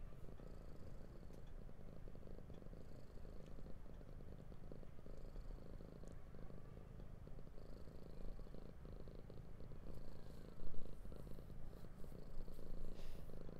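Domestic cat purring steadily, close to the microphone, with a few faint clicks.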